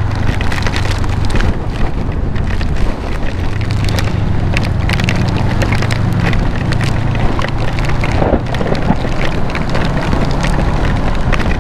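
Wind rushing over a helmet microphone on a moving motorcycle while rain hits it in dense crackling pops, over the steady low drone of the motorcycle's engine.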